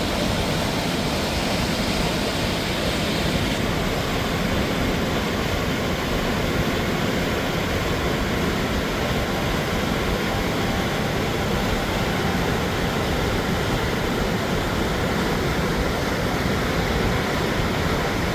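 Steady rushing of the Sheep River and its falls, running high with a very strong current.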